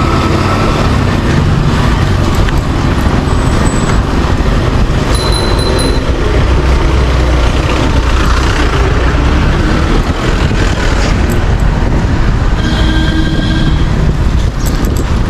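Steady rush of road traffic noise and wind on the microphone of a moving bicycle, loud and unbroken, with a brief horn-like tone about thirteen seconds in.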